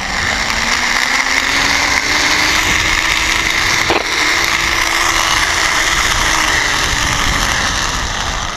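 Zipline trolley pulleys running along the steel cable as a rider slides down: a loud steady rushing whir with a low whine that climbs in pitch over the first few seconds, then holds. A single click comes about four seconds in.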